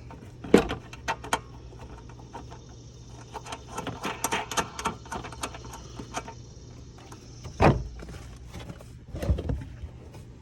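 Hand-work clicks, taps and knocks as a car's keyless-go module and its mounting hardware are fitted back in place, with a few louder thumps about half a second in and again near the end. A faint low steady hum runs underneath.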